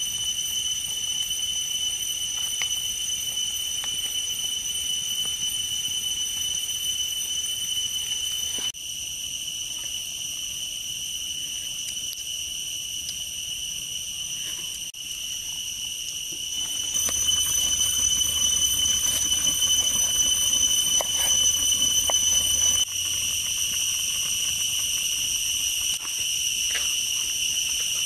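Insects droning steadily in a high pitch, one tone with a fainter, higher one above it, dipping and rising in loudness a few times, with a few faint clicks.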